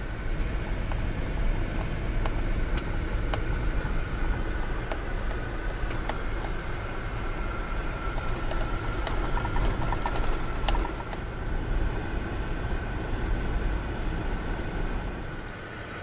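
Road noise inside a vehicle's cabin while driving on an unimproved dirt road: a heavy low rumble from the tyres and suspension over the rough surface, with scattered sharp clicks and knocks and a thin steady whine. The rumble eases near the end.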